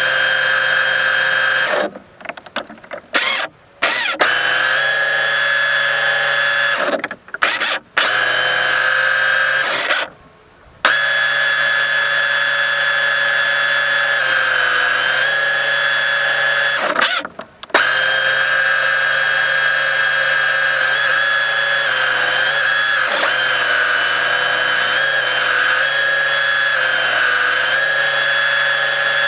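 Small electric motor of a mini RC boat whining steadily at speed, heard close up through the camera riding on the hull. It cuts out briefly about four times and picks up again, and its pitch sags slightly here and there.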